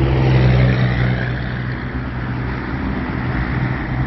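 A motor vehicle engine's steady low hum, easing off about a second in and slowly fading, over a rushing noise.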